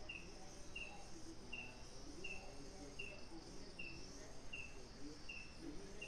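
A night insect, like a cricket, chirping steadily: one short high chirp about every three-quarters of a second, faint against quiet night background noise.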